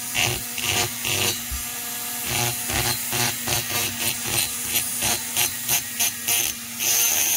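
Small rotary grinding tool running with a steady hum as its ball-nosed bit is worked back and forth along a port edge inside a chainsaw cylinder, grinding a chamfer into the plated edge. The strokes come about two to three a second.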